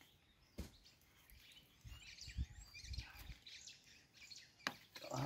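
Faint birds chirping in the background, with a couple of sharp clicks and a few soft low knocks.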